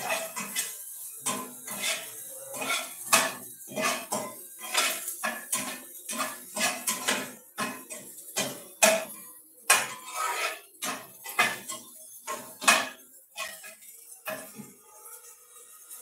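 Metal spatula scraping and clanking against a frying pan as food is stir-fried, in quick irregular strokes about two a second. The strokes stop about a second and a half before the end.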